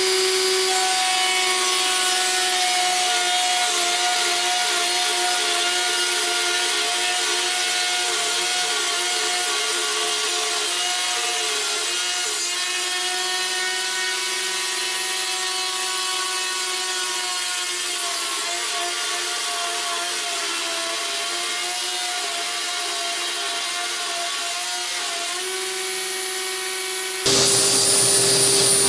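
Plunge router running at speed with a steady high whine, cutting along a straight guide in particleboard; the pitch sags a little partway through as it takes load. Near the end it gives way abruptly to a louder sliding-table panel saw running.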